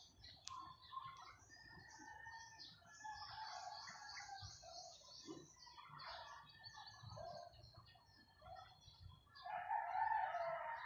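Birds calling and chirping, with a rooster crowing near the end.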